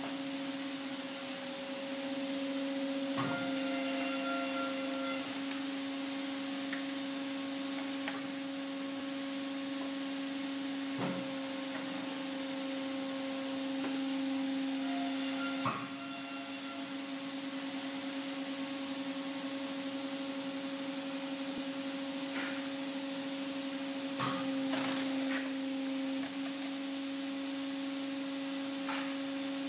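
Vertical single-beam hydraulic log splitter running with a steady hum. It grows louder twice, a few seconds in and again past the middle. Several sharp knocks and cracks of wood are handled and split under the ram.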